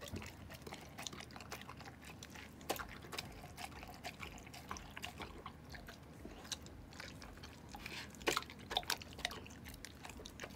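A Labrador retriever eating wet rice porridge from a bowl: irregular chewing and wet mouth clicks, busiest about eight to nine seconds in.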